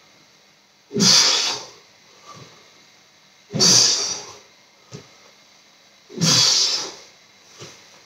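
A man's forceful exhales, one with each repetition of an elbow-to-knee ab exercise: three sharp breathy blasts about two and a half seconds apart, with a short faint breath between each.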